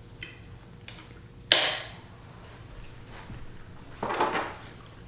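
A fork or other eating utensil clinking against a plate or bowl: a few sharp, ringing clinks, the loudest about a second and a half in, then a rougher scraping sound about four seconds in.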